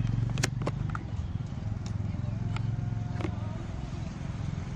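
Low, steady rumble of an engine running, with a few sharp clicks scattered through it.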